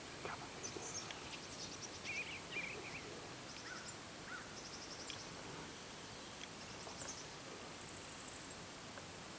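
Outdoor field ambience: wild birds calling, with short warbling calls and several rapid high trills at intervals over a faint steady hiss.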